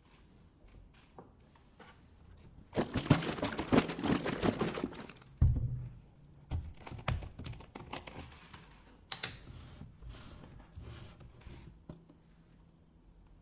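Handling of a measuring cup and an almond milk carton on a wooden table: a dense patter of clicks and rustles for about two seconds, a single thud as something is set down, then scattered clicks as the carton's plastic screw cap is twisted open.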